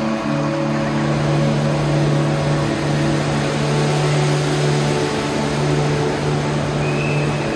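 Steady rush of a large volume of water: a whirlpool draining through the centre of an acrylic bowl and falling two stories into a pool. Steady low tones sit under the rush.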